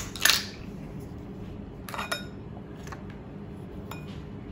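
Kitchen utensils clinking against a glass mixing bowl and a metal mesh sieve: a sharp clink about a quarter second in, then lighter ones about two and four seconds in.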